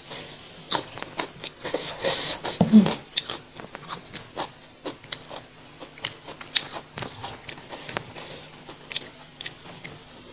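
Close-up chewing and crunching of raw young jengkol (dog fruit) beans, mixed with small clicks and crackles as the jengkol skins are peeled by hand.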